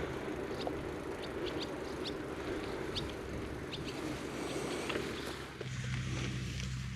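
Small birds chirping, a string of short high chirps over steady outdoor noise; about five and a half seconds in, the noise gives way to a steady low hum.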